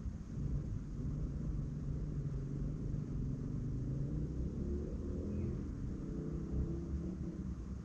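Steady low rumble of a car in motion, engine and road noise.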